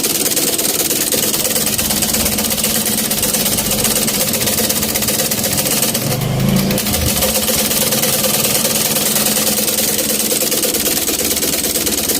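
Antique Singer treadle sewing machine running steadily under foot-pedal power, its needle and shuttle mechanism clattering rapidly and evenly.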